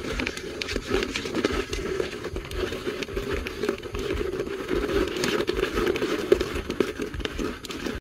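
Millipedes and beetles crawling and scrabbling on the plastic floor and walls of a bucket, a dense, continuous scratchy crackle of many tiny clicks.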